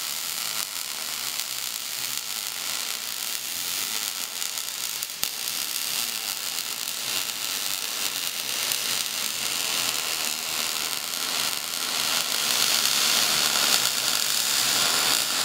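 MIG welding arc from a Millermatic 212 Auto-Set MIG welder burning on mild steel tubing, a steady crackle that gets louder about twelve seconds in. The machine is turned up slightly so the wire, sticking out farther from the nozzle in a deep 45-degree tube joint, burns off hotter for better penetration.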